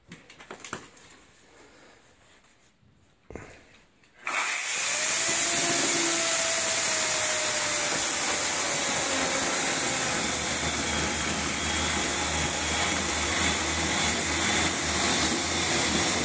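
Chainsaw cutting into the upholstered back of a couch. It comes in suddenly about four seconds in and runs steadily; before that there are only faint handling sounds.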